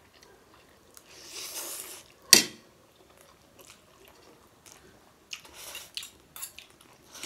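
Two people slurping and chewing spicy Korean instant noodles eaten with forks: soft hissy slurps about a second in and again past five seconds, with small clicks of eating. One sharp tap just over two seconds in is the loudest sound.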